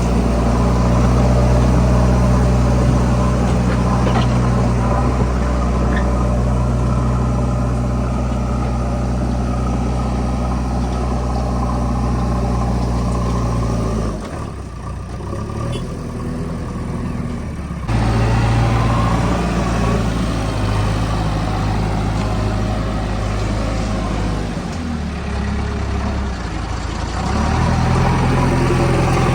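A JCB 3DX backhoe loader's diesel engine running under working load. It drops back about halfway through for a few seconds, then picks up again, with further shifts in engine speed near the end.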